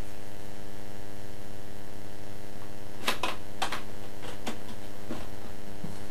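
Steady mains hum on a recorded phone line, with a handful of sharp clicks and taps between about three and five seconds in.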